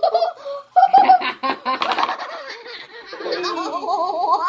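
Children laughing and giggling loudly, with a long run of quick, wavering laughter near the end.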